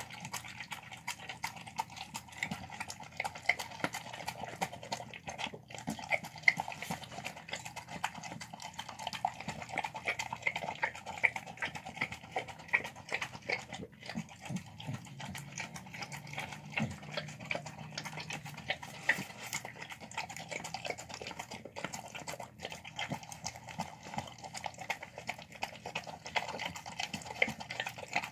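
A dog eating wet chicken-and-rice food out of a plastic tub: a fast, continuous run of licking, smacking and chewing, with the tongue and teeth clicking against the plastic.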